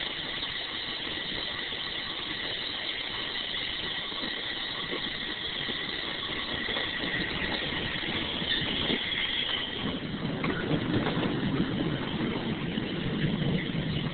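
Angels Flight funicular in motion: a steady high metallic squeal from its steel wheels and cable running gear. About ten seconds in the squeal fades and a low rumble grows as the car rolls down the trestle overhead.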